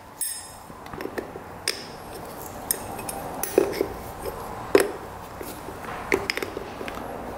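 Irregular light metallic clinks and taps from hand tools and parts during work on a dirt bike's carburetor, the loudest a little under five seconds in.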